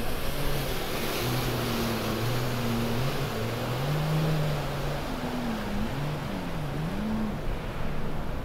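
Four outboard motors of a center-console boat running at low speed, their drone shifting in pitch: it rises about halfway through, then dips and rises again near the end, with water and wind noise underneath.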